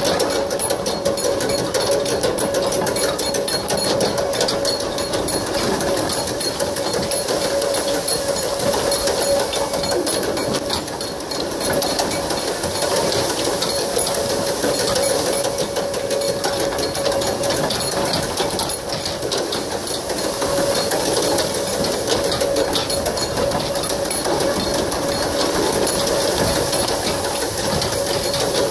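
Continuous fast metallic rattling and clattering of a bull-drawn iron racing frame with spoked wheels, dragged around a dirt track by a pair of racing bulls, with a steady hum underneath.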